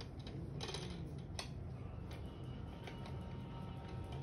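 A few scattered light clicks and knocks of wooden toy pieces as a baby monkey handles a wooden activity cube.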